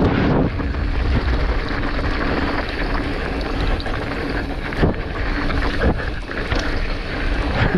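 Wind buffeting the microphone during a mountain-bike descent, over the rumble of tyres on a dirt trail, with a couple of sharp knocks from the bike rattling over bumps about five and six seconds in.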